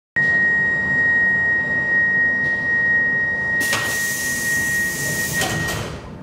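Stockholm metro C14 car's door-closing sequence: a steady high warning tone sounds while the sliding doors close. A loud hiss starts about three and a half seconds in, there is a knock as the doors shut, and tone and hiss stop together just before the end.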